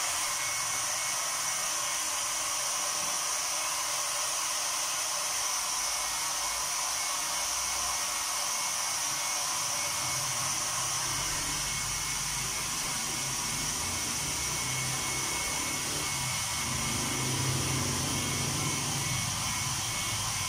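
Handheld heat gun blowing with a steady hiss, drying freshly printed water-based ink on the shirts. A low rumble joins in about halfway through.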